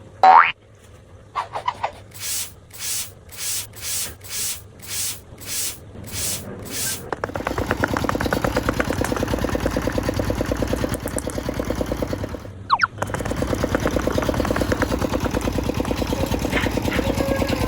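Dubbed comic sound effects: a short pitch glide, then a run of about nine rhythmic swishes at about two a second, then a fast motor-like rattle that is broken once by a falling whistle and starts again.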